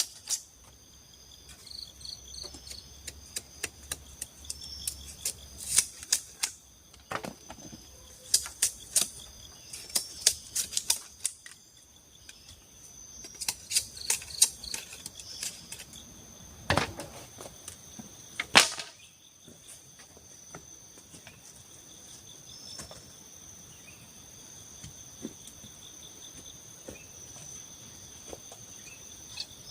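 Bamboo being chopped and knocked while a shelter door is built: irregular clusters of sharp knocks and taps, with two louder blows about 17 and 18.5 seconds in, after which they thin out. Steady high trilling of forest insects runs underneath.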